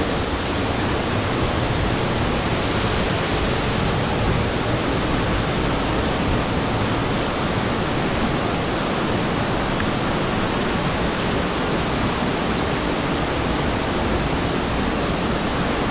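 Water rushing through a cave passage: a steady, even roar with no let-up. A brief knock sounds right at the start.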